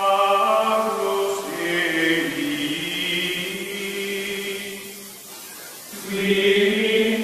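Outro music of choir-like voices chanting long, sustained notes. It dips in the middle and swells again near the end.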